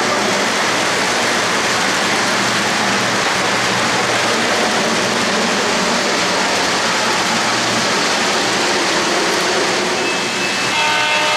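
Steady rolling rumble of O-gauge three-rail model freight cars running over metal track, with a steady low hum underneath. Near the end a steady pitched tone comes in.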